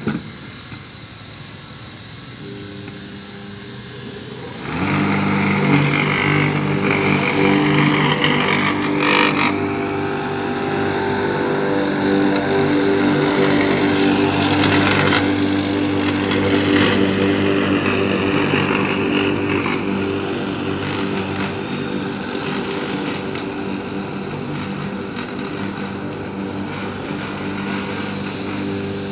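Max Green corded electric rotary lawn mower running and cutting grass, with a steady motor hum and blade hiss. The sound is quieter at first and becomes loud and steady about five seconds in.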